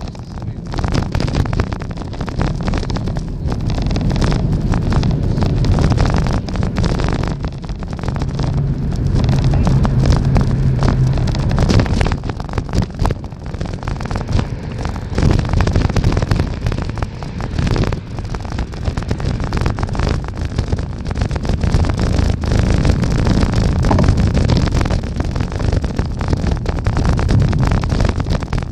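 Wind buffeting the microphone of a camera riding on a moving bicycle, a heavy fluttering rumble over road noise, with a low steady hum for a few seconds about a third of the way in.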